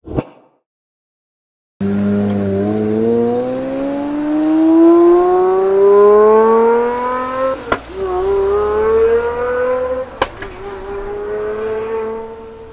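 Car engine accelerating hard through the gears, its pitch climbing steadily, with two upshifts, each marked by a sharp crack and a drop in pitch. A short click comes just before the engine starts.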